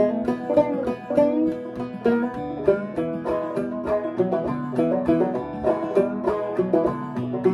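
Clawhammer banjo playing a tune: an old Gold Tone banjo converted to half-fretless (flush-fret), with a goat-skin head and Nylgut strings, sounding a steady stream of quick plucked notes.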